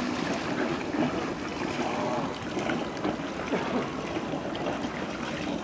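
Steady noise of water moving around a boat at sea, with faint distant voices of swimmers.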